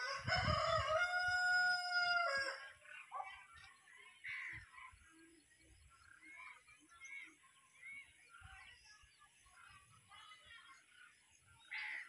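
A rooster crows once, a long held call during the first two and a half seconds and the loudest sound here. Faint, scattered short bird calls follow.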